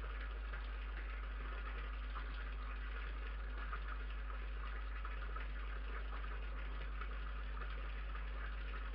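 Steady low hum and hiss from a night-vision security camera's microphone, with faint scattered ticks.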